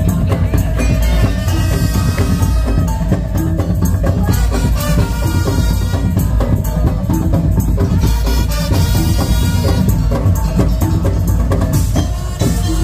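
Madurese tong-tong ensemble playing: wooden slit drums and drums pound out a dense, driving rhythm under a melody.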